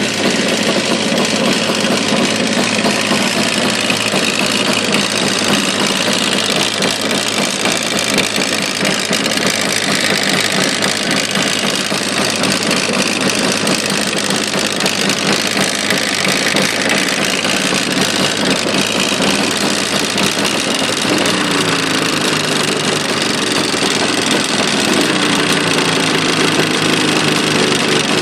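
Jawa motorcycle engine running steadily, with a knock in the engine.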